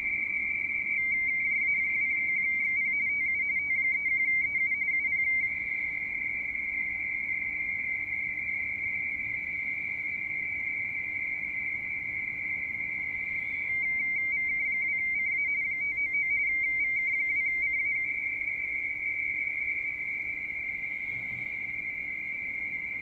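Radioteletype (RTTY) signal heard through a shortwave receiver's speaker on the 30 m band: a steady whistling tone just above 2 kHz that twice breaks into a rapid warble between two close tones as data is keyed, over faint band hiss.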